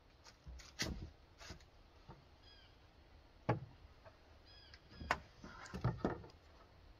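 Irregular knocks and thumps on wooden boards, about six spread unevenly, as a person climbs about a wooden frame built from rough-sawn offcuts. A couple of short, faint squeaks fall between the knocks.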